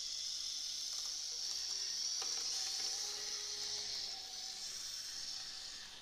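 Märklin Z-scale E40 electric locomotive running along the track: its tiny motor and wheels give a steady, high-pitched hissing whir that eases off a little near the end.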